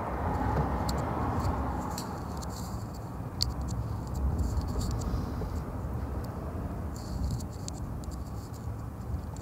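Light, irregular taps of fingertips typing on a phone's touchscreen keyboard, over a low steady rumble.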